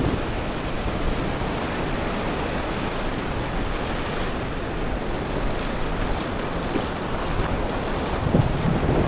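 Steady sea surf washing on the beach, with wind on the microphone and a stronger gust near the end.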